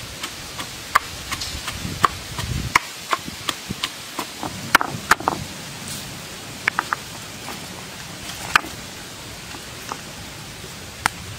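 Stone pestle pounding red chillies and garlic in a stone mortar, giving irregular sharp knocks of wood or stone on stone. The knocks come two or three a second for the first half, then only now and then.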